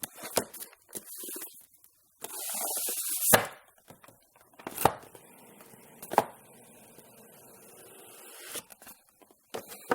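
Cardboard retail box of a Nest Protect being opened and unpacked. A loud rush of scraping cardboard comes about two to three seconds in, followed by several separate sharp knocks as packed pieces are handled and set down.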